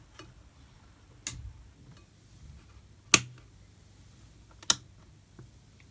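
Three sharp clicks, one every second and a half or so, the middle one loudest: room light switches being flipped off.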